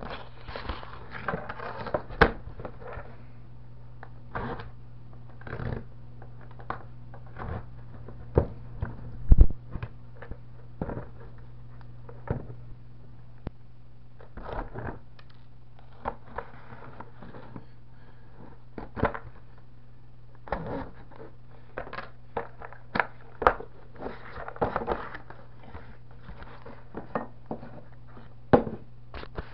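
Hands working open a padded mailing envelope: irregular crinkling, rustling and scraping, with scattered knocks and one louder knock about nine seconds in. A steady low hum runs underneath.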